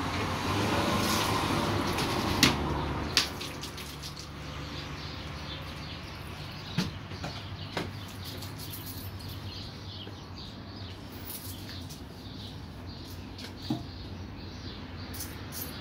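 Water running as a plastic bottle is rinsed at a basin, for about the first three seconds. After that it is quieter, with a few separate sharp clicks and knocks.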